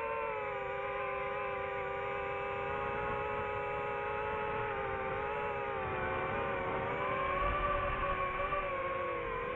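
DJI FPV quadcopter's motors and propellers whining in flight, heard from on board: several steady tones that sag in pitch about five seconds in, climb again about seven seconds in, and dip once more near the end as the motor speed changes.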